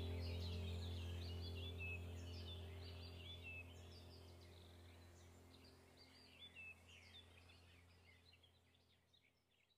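Many small birds chirping and calling over a steady low held drone. Both fade out gradually until little is left near the end.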